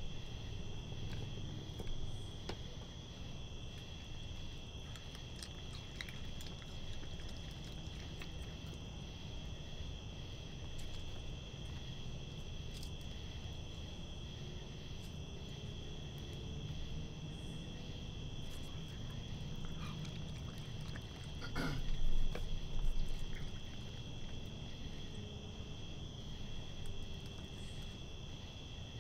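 Steady high-pitched night-time chorus of crickets, with a low rumble beneath it. Scattered small clicks run through it, and there is a louder thump about three-quarters of the way in.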